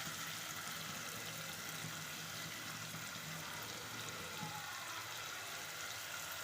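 Masala-coated prawns frying in oil in a pan, a steady sizzle.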